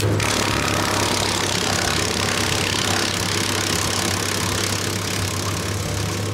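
Wood chipper running with a steady engine drone while branches are fed in and chipped, a loud rushing noise of wood being cut over the engine.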